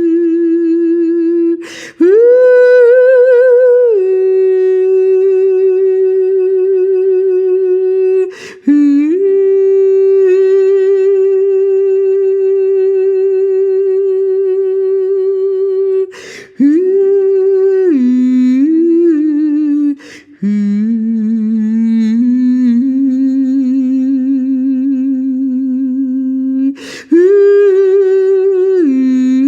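A woman's wordless sustained vocal tones, long held notes with vibrato, several seconds each, separated by quick catch-breaths about five times. The pitch sits mostly in one middle register and dips lower for a few seconds past the halfway point.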